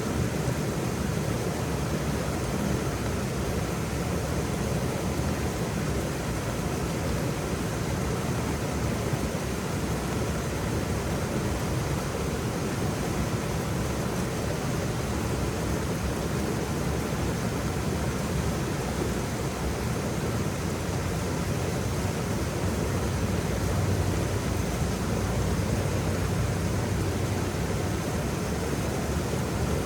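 Waterfall: a steady, unbroken rush of falling water, with its weight low and a slight swell about three quarters of the way in.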